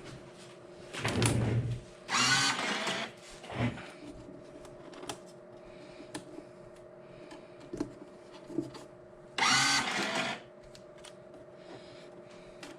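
A power drill runs in two short bursts, about two seconds in and again near the end, its pitch rising as it speeds up. A steady low hum runs underneath, with a few light knocks between the bursts.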